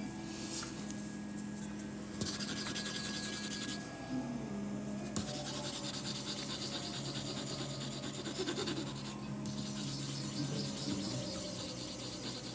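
Wood-burning pen rubbing and scratching across a wooden board, with short pauses about four and nine seconds in, over a steady low hum.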